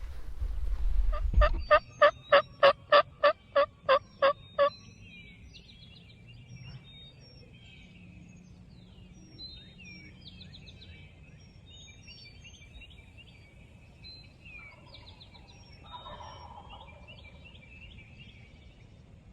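Turkey yelping: a run of about ten loud, evenly spaced notes, about three a second, that stops about five seconds in. Songbirds chirp afterwards, and a faint, distant gobble comes about fifteen seconds in.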